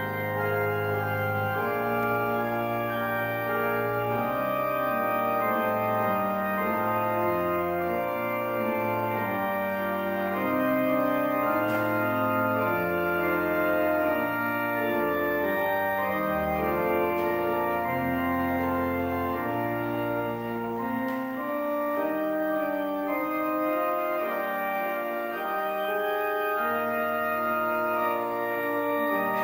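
Kegg pipe organ playing a slow piece in sustained, overlapping chords, with deep pedal bass notes under the harmony until about two-thirds of the way through, when the bass drops out and only the manual voices continue.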